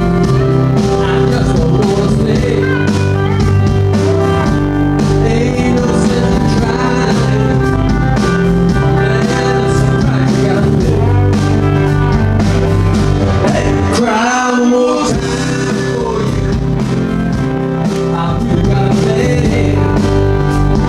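Live rock band playing an instrumental break in a slow country-blues ballad, a lead line bending over the backing. About two-thirds of the way through, the bass end drops out for about a second, then comes back.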